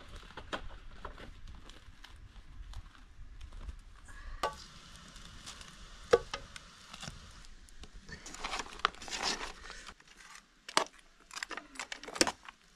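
Hands tearing and crumbling a thick ash-baked flatbread into a metal cooking pot: crackly rustling of the crust breaking, with scattered clicks of bread and fingers against the pot, thickening into a denser rustle about eight seconds in.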